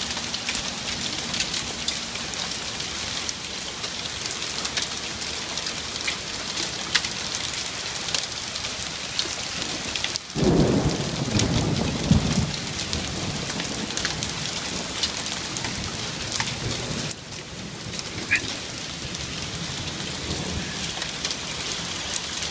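Heavy rain and pea-size hail falling on a wooden deck, with many sharp ticks of hailstones striking. About halfway through, a low rumble comes in suddenly and lasts a couple of seconds.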